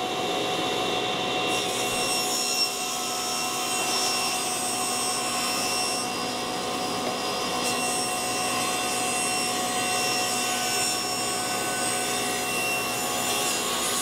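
SawStop table saw ripping a board: the spinning blade's steady whine, with the blade cutting into the wood from about a second and a half in and carrying on steadily through the cut.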